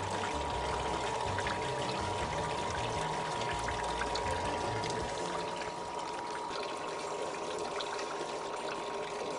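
Descaling solution pouring and splashing out of an outboard's lower unit into the flush tank as the descaling pump circulates it through the engine's cooling system, under a steady hum. The low rumble thins out about halfway through.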